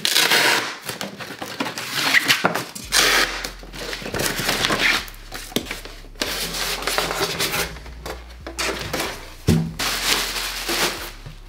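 Velcro straps tearing open on a styrofoam packing box in a few noisy rasps. Then styrofoam parts scrape against each other as the lid comes off, and a plastic bag crinkles near the end.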